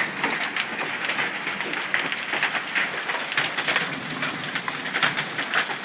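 Hail falling with heavy rain: a steady rush of rain with many sharp, irregular clicks of hailstones striking the porch and the wet pavement.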